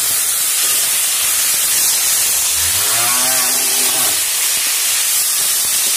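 Chopped banana stem and prawns sizzling in hot oil in a steel wok as they are stirred, a steady loud hiss. About two and a half seconds in, a cow moos once, a call lasting about a second and a half; the cow is calling from hunger.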